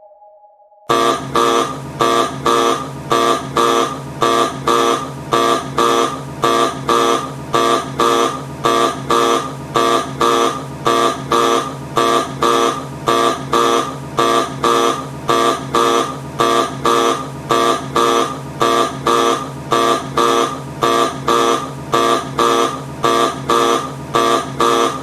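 Ship's alarm buzzer sounding in harsh, even pulses, about two a second, starting abruptly about a second in after the fading tail of a tone.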